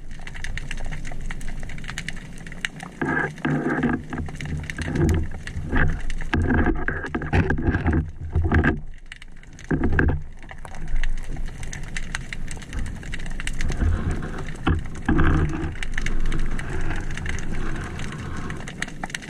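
Muffled underwater noise picked up by a camera in the water: irregular surges of water movement, with scattered sharp clicks.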